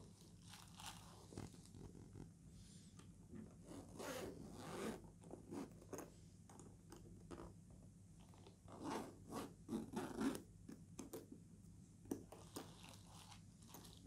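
Zipper of a black hard-shell storage case being pulled around the case, in a series of short faint pulls, strongest around four to five seconds in and again near ten seconds.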